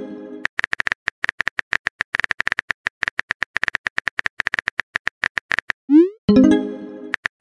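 Phone keyboard typing sound effect: rapid sharp clicks, each with a bright tick, as a text message is typed out. About six seconds in, a quick rising swoop and a short pitched tone play as the message is sent.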